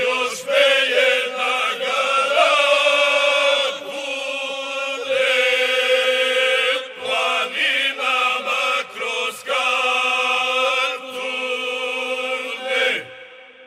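A group of folk singers sings a traditional Herzegovinian song in a chant-like style, with short breath pauses, over a steady held drone note. The singing ends about thirteen seconds in and rings away.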